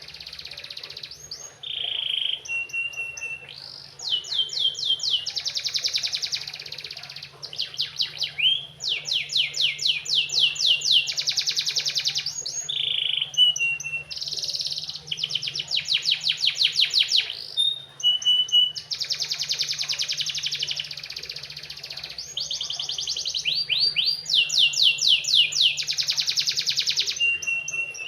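Domestic canary singing a long, unbroken song of fast trills and rolls of rapidly repeated notes. The trills are broken now and then by short, steady, whistled notes.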